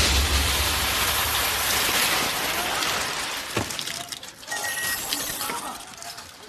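Dying tail of an explosive collar's blast: a broad rushing noise that fades away over several seconds, with a single sharp knock about three and a half seconds in.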